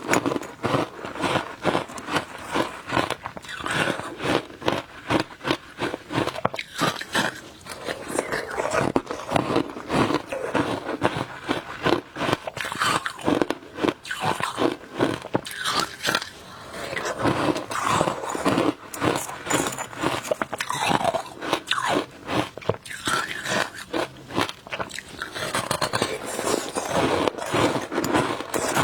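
A person biting and chewing frozen passion fruit shaved ice close to the microphone, with rapid, irregular crunching throughout.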